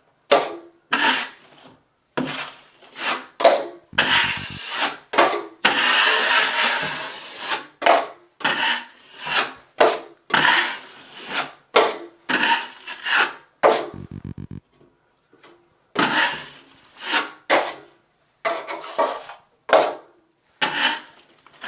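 Drywall knife scraping joint compound across a mesh-patched wall in a run of short, repeated strokes, with one longer pass about six seconds in. There are brief rattly clatters around four seconds and fourteen seconds in.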